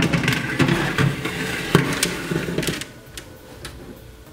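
A metal baking tray lined with parchment sliding into an oven onto the rack: scraping and rustling with several knocks through the first three seconds, then quieter.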